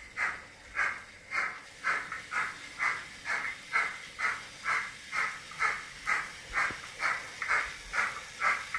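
Digital sound module of a Märklin BR 23 model steam locomotive playing steady steam chuffs, about two a second, as the locomotive runs.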